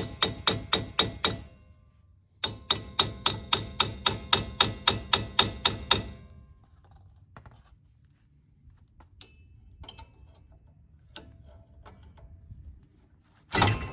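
Hammer striking a Jeep Gladiator's rear axle shaft to loosen it from the axle housing: rapid blows, about five a second, each ringing like metal, in two runs with a short pause between. Then a few light metal clinks and one loud knock near the end.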